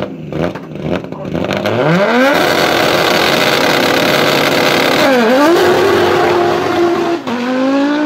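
Audi S1 quattro hillclimb car's turbocharged five-cylinder engine popping and crackling, then revving up sharply about a second and a half in and running at high revs. The pitch drops and climbs again about five and about seven seconds in as it changes gear.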